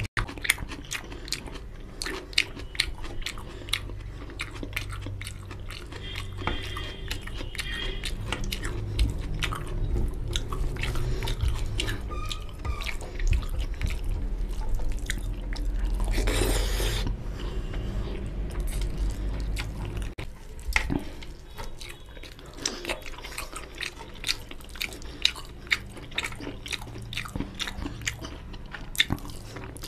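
Close-miked eating of mutton curry and rice by hand: chewing with many short wet mouth clicks and smacks, and fingers squishing rice into the gravy. One longer rushing sound comes about the middle.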